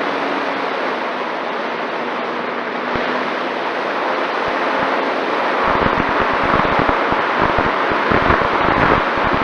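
Steady rushing wind noise, with wind buffeting the microphone in low rumbling gusts from about halfway in.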